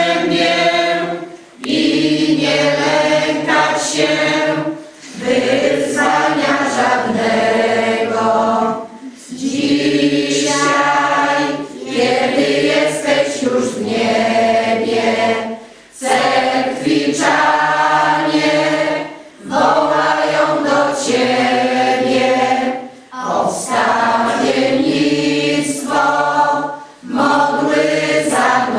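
Amateur choir of women's voices with a few men singing unaccompanied, in phrases of a few seconds each with short breaks for breath between the lines.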